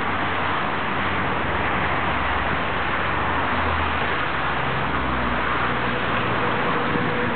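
Steady rumble and hiss of an approaching heavy coal train hauled by two class 189 electric locomotives, with a low drone; a faint steady tone comes in near the end.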